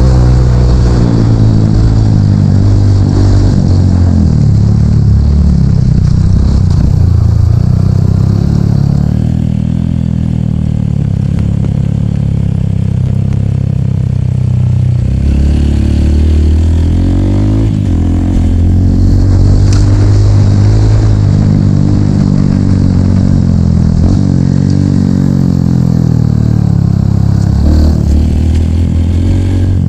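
Dirt bike engine being ridden off-road, revving up and down again and again as the throttle opens and closes. It eases off to a lower, quieter run for a few seconds about a third of the way in.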